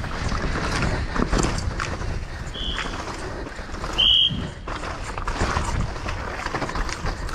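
Downhill mountain bike ridden fast over loose dirt, heard from a helmet camera: wind rushing over the microphone, tyres scrubbing the ground and the bike's chain and frame rattling with constant knocks. Two short shrill whistle blasts cut through, the second and louder about four seconds in.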